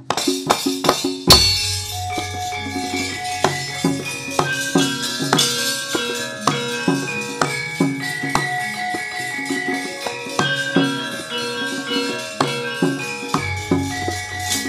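Javanese gamelan playing fast wayang battle music: metallophones striking a quick run of ringing notes over drum, with the puppeteer's metal keprak plates clattering. A loud stroke about a second in brings in a low droning note that holds until near the end.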